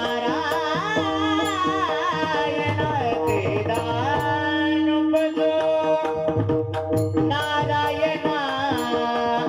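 Warkari devotional song: a singer draws out long, ornamented notes that bend up and down over a held steady drone, while a pakhawaj drum keeps up a rhythm of strokes underneath.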